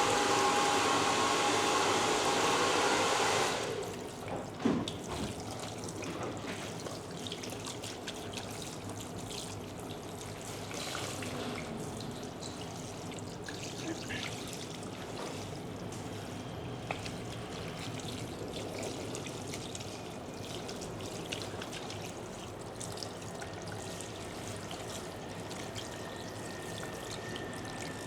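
Water trickling and pouring, with scattered small splashes and clicks. About three and a half seconds in, a louder steady rushing noise carrying a faint whine stops abruptly.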